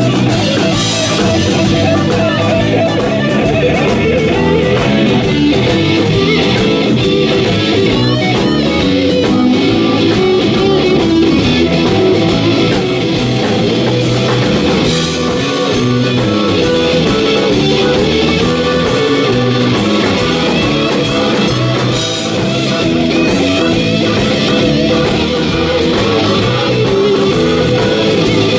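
Live rock band playing, an electric guitar taking the lead over bass guitar and drums, with no singing.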